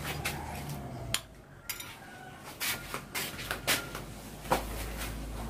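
Kitchen utensils clinking against a pot and dishes: about seven sharp knocks and clinks spread over a few seconds, a couple of them ringing briefly.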